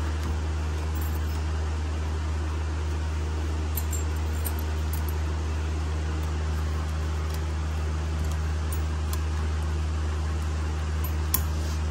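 Steady low hum, with a few faint light metallic clicks from the brake pad abutment clips in the caliper bracket being handled, and one sharper click near the end.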